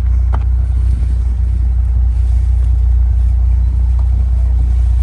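Steady, loud low rumble.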